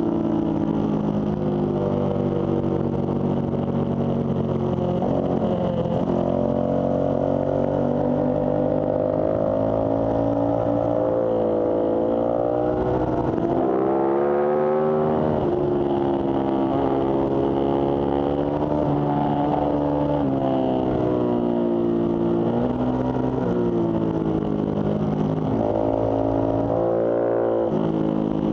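Ducati sportbike's V-twin engine heard from on board under hard riding, its revs repeatedly climbing and dropping with throttle and gear changes, with a big rise about halfway through before falling away. A steady rush of air noise runs underneath.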